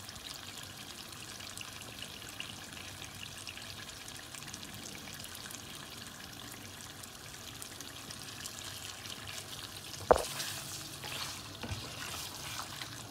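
Thick mutton karahi sizzling quietly in a stainless steel pot. About ten seconds in, a wooden spatula knocks against the pot and then stirs and scrapes through the meat and masala.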